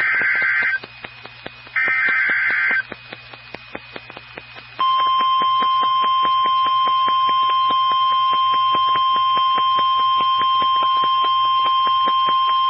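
NOAA Weather Radio alert signal: two bursts of the SAME digital header, each a warbling data tone about a second long, then after a gap of about two seconds the steady single-pitch 1050 Hz warning alarm tone starts and holds, announcing a warning message to follow.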